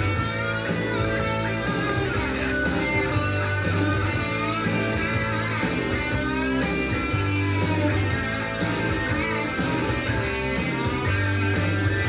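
Guitar-led rock music playing back from a vinyl record, with a steady repeating bass line under gliding electric guitar lines.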